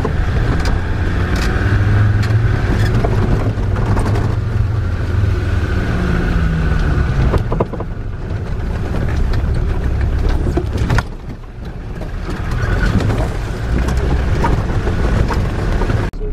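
Engine of a four-wheel-drive vehicle running, heard from inside the cabin as it drives through a shallow river ford. The engine note rises briefly around the middle and eases off later.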